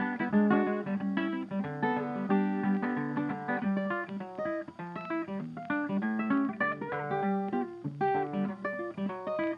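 Background music: a ragtime tune picked on acoustic guitar, a quick run of plucked notes over a steady bass pulse.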